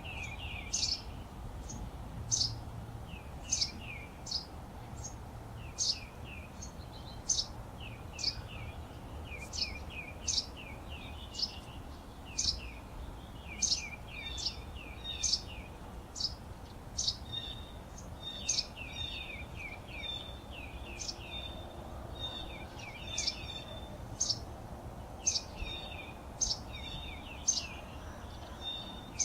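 Small songbirds chirping: a stream of quick, sharp downward-sweeping chirps, roughly one or two a second, joined about halfway through by a repeated higher twittering note, over a low steady background rumble.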